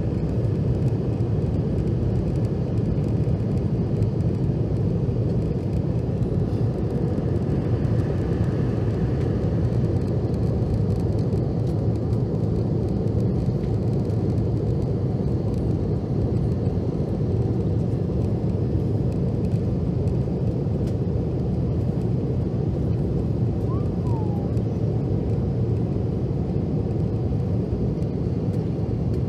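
Steady cabin noise of a Boeing 717 airliner in flight, heard from inside by a window seat: an even, deep rumble of the rear-mounted Rolls-Royce BR715 turbofan engines and the airflow over the fuselage.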